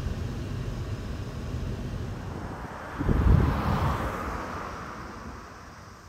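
Cabin noise of a moving shuttle bus: a steady low engine and road rumble. About halfway through comes a louder low thump, then a rushing sound that swells and fades away.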